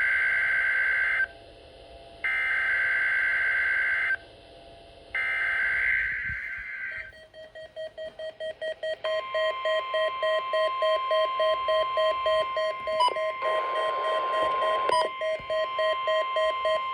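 Emergency Alert System test alert over NOAA Weather Radio. Three bursts of screeching SAME digital header tones come first, about two seconds each with a second's gap between them. Then a rapidly pulsing beep starts, and about two seconds later the long steady weather-radio warning alarm tone joins it.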